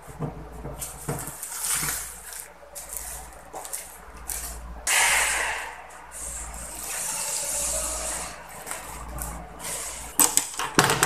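Plastic-wrapped tissue pack rustling as it is taken from a coin-operated tissue vending machine, with a loud crinkle about five seconds in and a few sharp clicks near the end.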